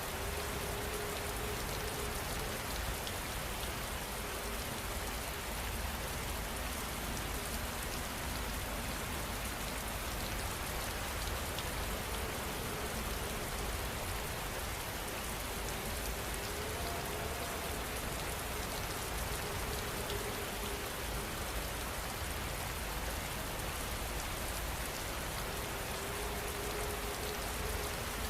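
Steady heavy rain falling, an even hiss of many drops without pause.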